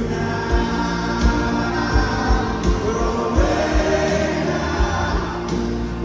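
A live rock band playing through a concert PA: lead and backing vocals holding sung notes over guitars and a steady kick-drum beat of about two hits a second, heard from within the crowd.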